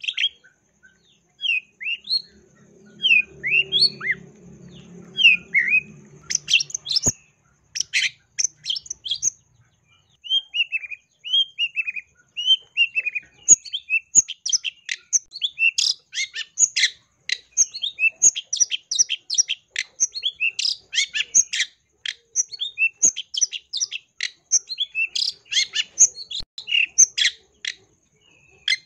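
Long-tailed shrike (cendet) singing a varied song packed with mimicked calls. It gives slurred whistled notes for the first dozen seconds, then from about thirteen seconds in a fast, dense run of sharp chattering notes.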